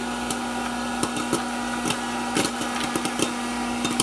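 1980s Hamilton Beach hot air popcorn popper running: the fan motor's steady hum and rush of hot air, with sharp, irregular pops of kernels bursting, about two a second, as the batch pops in full swing.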